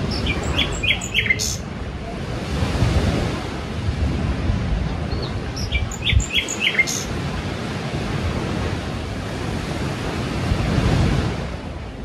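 Sea waves washing in a steady rush, swelling about three seconds in and again near the end. Birds chirp in two quick flurries of short, high tweets, one near the start and one about six seconds in.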